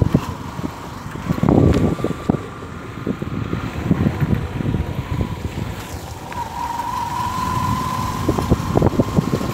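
Wind buffeting the microphone in gusts over a running motorcycle engine, whose steady whine can be heard at the start and again from about six seconds in.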